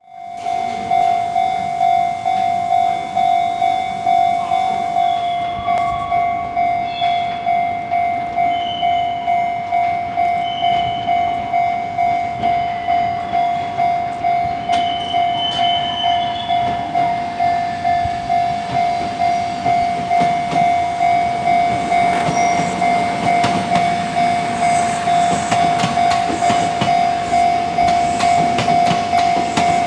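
Japanese level-crossing alarm ringing, one steady electronic 'kan-kan' tone repeating evenly about one and a half times a second. From about two-thirds of the way through, a Kintetsu electric train approaches and passes, its wheels clacking over the rail joints under the alarm.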